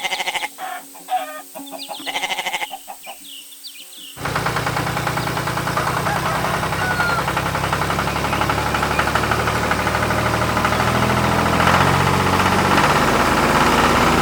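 Chickens clucking and chirping in short bursts. About four seconds in, a steady low chugging like a tractor engine starts suddenly and runs evenly on.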